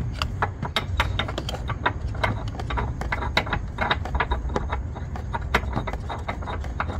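Tow bar of a license-plate bracket being turned by hand into the threaded tow-hook socket of a Mercedes front bumper: a run of irregular light clicks, several a second, over a steady low rumble.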